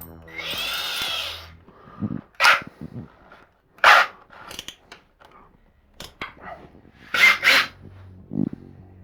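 A power drill fitted with a step bit runs for about a second, its whine rising and falling in pitch as it enlarges a hole in the cabinet. Several sharp knocks and clatters follow.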